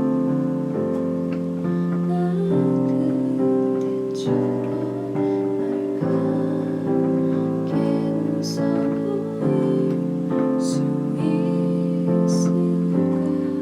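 Piano playing a slow run of sustained chords, each held for one to two seconds before changing to the next.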